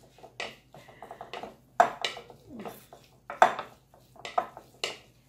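A utensil clinking and knocking against a bowl in irregular strokes as seasoned raw chicken pieces are stirred.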